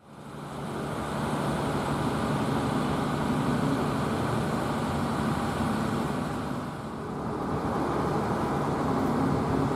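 Steady drone of nearby road traffic, motor vehicles running past with a low engine hum. It fades in from silence at the start and eases briefly about seven seconds in.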